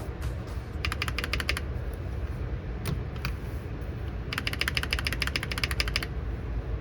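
Mechanical key switches on an MW65 gasket-mount acrylic keyboard being pressed in rapid runs of even clicks, one about a second in and a longer one from about four to six seconds in, with a couple of single presses between.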